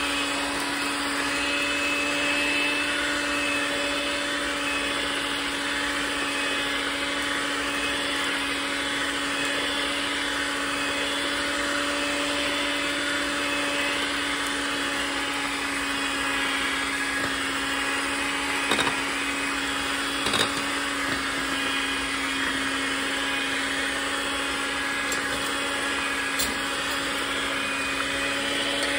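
Chefmate electric hand mixer running steadily, its beaters whirring through brownie batter in a bowl with a constant motor hum. A few brief knocks sound in the second half.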